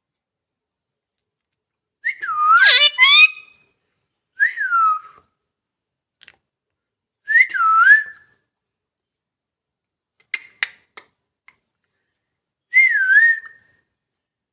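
A pet parrot whistling: four short whistles that dip and rise in pitch, the first longer and mixed with quick chirps, with a few sharp clicks between the third and fourth.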